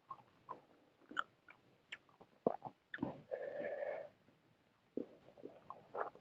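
Close-miked chewing and wet mouth clicks of a person eating omelette with sambal and fried tempe. A louder, sustained sound lasting about a second comes around halfway.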